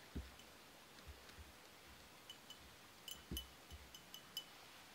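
Faint small metallic clinks, each with a short high ring at the same pitch, coming in a quick cluster through the second half, with a couple of soft low thumps.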